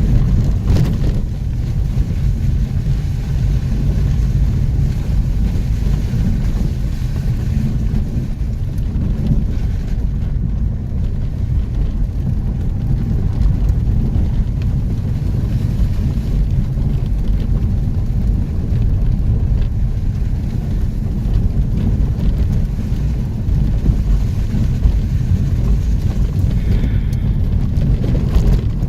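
A vehicle driving off-road: a steady low rumble with wind noise on the microphone.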